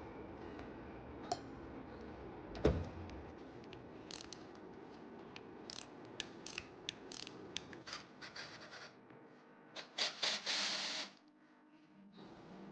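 Scattered clicks and a knock from handling tools and parts during a small block Chevy engine teardown, then a short burst of scraping about ten seconds in.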